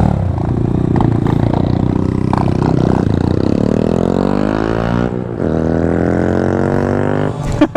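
Motorcycle engine accelerating hard, its pitch climbing, dropping sharply about five seconds in as it shifts gear, then climbing again.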